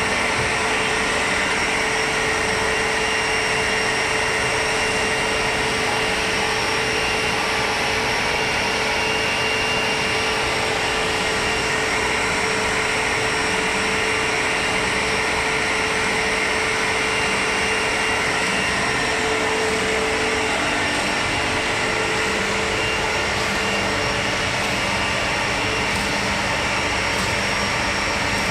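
CNC cutting machine running continuously: a loud, constant hiss with several steady tones, one of them low, which fades out about two-thirds of the way through.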